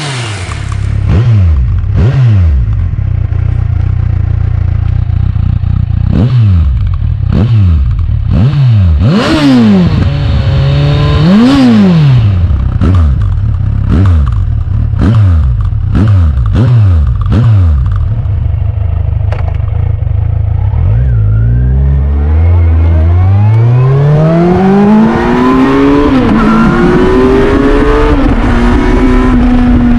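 Kawasaki Versys 1000's inline-four engine through an Akrapovic carbon slip-on silencer: idling with a string of sharp throttle blips at standstill, then about two-thirds of the way in the bike pulls away and the engine note climbs smoothly as it accelerates, with rushing air from the road.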